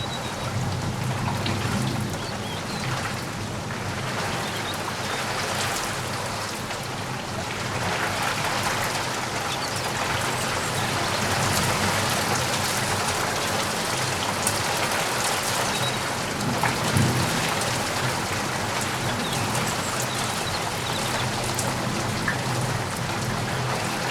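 Steady rain falling, growing a little heavier about a third of the way in, with one brief low thump about two-thirds of the way through.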